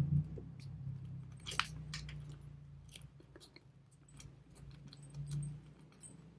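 Lock-pick rake rocked in the keyway of a steel laminated padlock: irregular light metallic clicks and scrapes as the pins are raked, with a steady low hum underneath. The lock does not open, which the picker puts down to its security pins.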